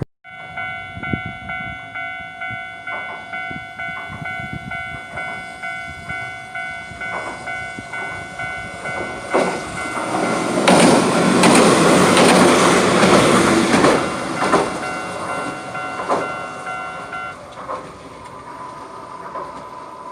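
Level-crossing warning bell ringing steadily while a Hiroden tram runs over the crossing. The passing train swells into a loud rush of wheels on rail about ten to fourteen seconds in. The bell stops about three seconds before the end.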